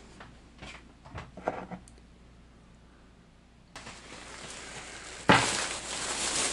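A few soft handling knocks, then quiet; about five seconds in, a thin plastic shopping bag starts crinkling loudly as it is lifted and handled.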